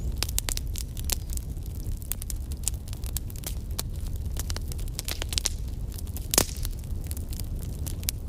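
Crackling fire sound: a steady stream of small sharp crackles over a low rumble, with one louder pop about six seconds in.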